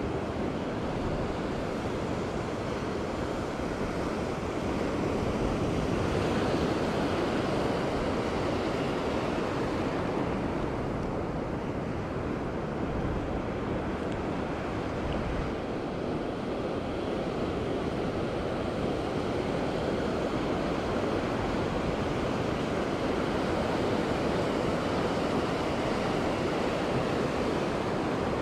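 Ocean surf on a sandy beach: shallow foam washing in and draining back over the sand, with waves breaking offshore. A steady rushing hiss that swells slightly about six seconds in and again near the end.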